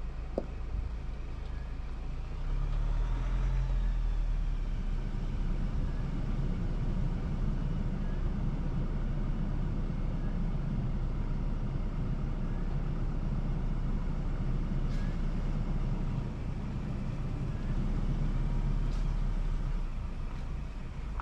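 A 4x4 pickup's engine runs as it crawls over a rough dirt trail, heard from a camera on its bonnet as a steady low rumble that swells about two seconds in. A couple of sharp knocks come near the end.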